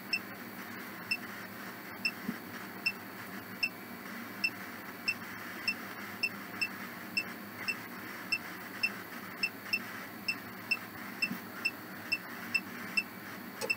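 Ghost-box phone app running: a steady hiss of static with short, high beeps repeating about twice a second.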